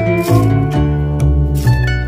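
Background music: an instrumental tune with plucked guitar over a steady bass line.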